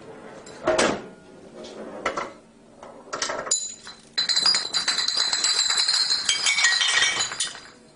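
Glass bottle dropped and knocking on a hard surface: three separate clinks, then a continuous high ringing clatter for about four seconds before it dies away.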